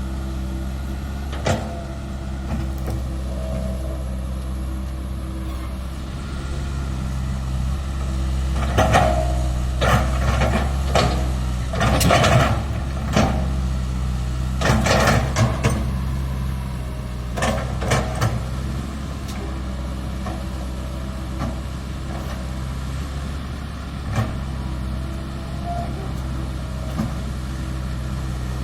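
Komatsu PC160LC-8 excavator's diesel engine running steadily, with a run of clanks and scraping knocks from the digging between about eight and eighteen seconds in, and a single knock near the start and another near the end.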